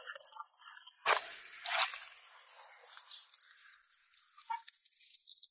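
Handling sounds from working on a white plastic PVC electrical conduit: a sharp knock about a second in, another sharp click soon after, then faint scraping and scratching that thins out.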